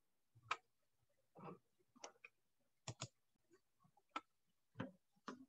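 Faint, scattered clicks of a computer mouse, about nine in all, with a quick double click about three seconds in.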